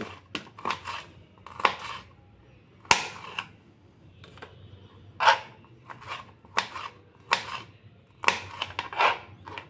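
Small kitchen knife chopping green chillies on a plastic cutting board: irregular sharp knocks of the blade striking the board, a few to the second, with short pauses between runs.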